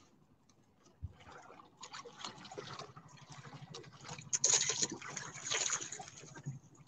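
Seawater splashing and lapping against the hull of a small wooden outrigger boat, with a rustling noise that grows louder about four seconds in.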